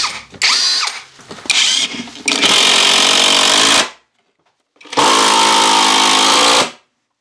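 Cordless drill/driver driving screws through a wooden cleat into a wall: a few short trigger bursts, then two longer steady runs of about a second and a half each with a short pause between them.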